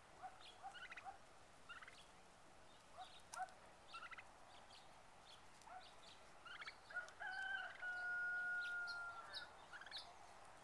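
A flock of wild turkeys calling softly at close range: a run of short, repeated clucks and yelps. About seven seconds in, a long steady whistled note is held for some two seconds.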